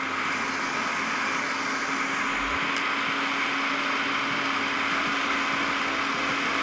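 Food processor motor running steadily, with one unchanging hum, blending a chopped herb and jalapeño chimichurri as oil is drizzled in through the feed tube to smooth it out.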